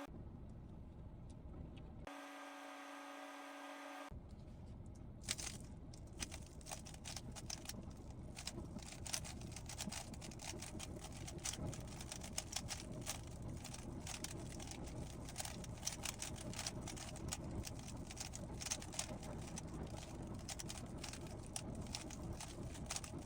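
A 3x3 Rubik's cube being turned fast, a dense run of small plastic clicks and clacks from about five seconds in. Before that, about two seconds in, a steady beep-like tone lasts about two seconds.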